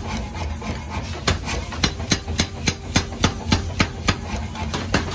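Power hammer pounding a red-hot steel pick axe blank on its anvil, a fast even run of about three to four blows a second, lighter for the first second and then heavier. The machine's steady hum runs underneath.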